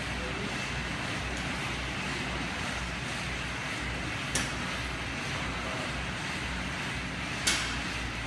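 Steady background hum with two short sharp clicks from a barbell being lifted, about four seconds in and again near the end, the second louder.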